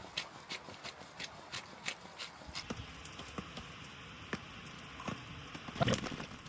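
A string of short, light clicks and knocks, about three a second at first and then more spaced out, with a louder cluster of knocks near the end.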